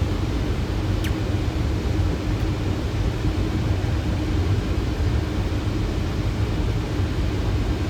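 Steady rush of airflow and engine noise inside a Boeing 737 cockpit on final approach with gear down and flaps 30, heavy in the low rumble, with a faint steady hum. A single short click about a second in.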